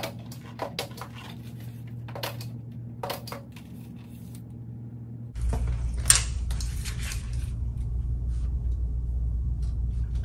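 Scattered light clicks, rustles and clattery knocks of paper bulletin-board border strips being handled and pressed up along the top of a whiteboard, with one sharp knock about six seconds in. A steady room hum underneath grows louder about five seconds in.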